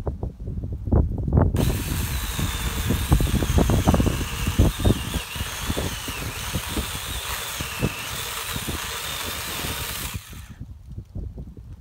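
A power tool runs for about eight and a half seconds with a wavering high whine. It starts about a second and a half in and stops shortly before the end, after some knocks and thumps of handling wood.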